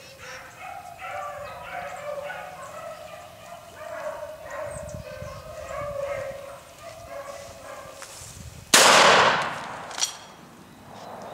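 Beagle pack baying on a rabbit's trail, then one loud gunshot near the end that fades over about a second, followed by a short sharp knock; the shot kills the rabbit.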